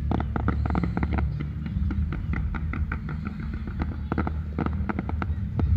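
Fireworks crackling and popping, a rapid run of many sharp cracks a second, over a steady low rumble.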